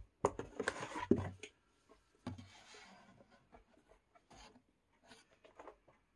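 Paper and cardboard handling as an instruction manual is pulled from the charger's box and held up: a cluster of knocks and rattles in the first second and a half, a thump a little after two seconds, then faint paper rustling and small ticks.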